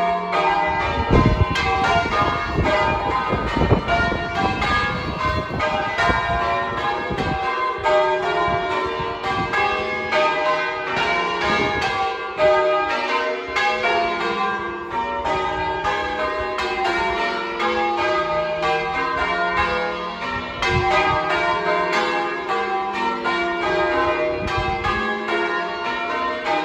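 Church tower bells being change-rung, struck one after another in a continuous, even rhythm with their tones overlapping.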